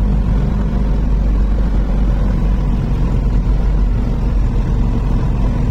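Tipper truck's diesel engine running steadily under way, heard from inside the cab as a low, even drone with road noise.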